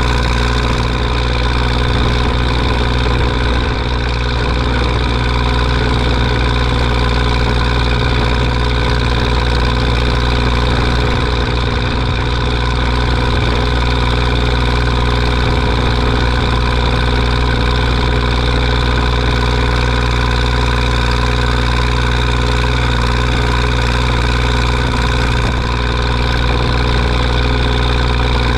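Zetor 5211 tractor's three-cylinder diesel engine running steadily at a constant speed, with no change in pitch or loudness.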